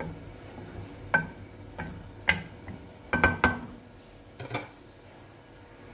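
Metal spatula clinking and scraping against an aluminium pan while stirring a wet curry: a handful of sharp clinks, some with a short metallic ring, the loudest cluster about three seconds in.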